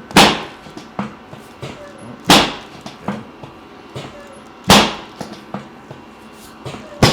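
Chiropractic drop table's drop section slamming down under an adjustment thrust, three loud bangs roughly two seconds apart, then a sharper knock near the end.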